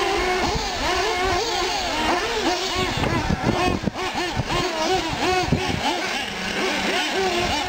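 Several nitro-powered 1/8-scale RC short course trucks racing on a dirt track. Their small glow-fuel engines whine up and down in pitch over and over as the drivers work the throttles through the turns and jumps, with several engines overlapping.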